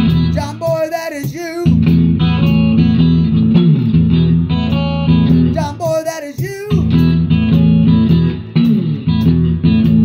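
A 1965 Fender Mustang electric guitar playing a repeating strummed chord riff, in phrases with short breaks between them.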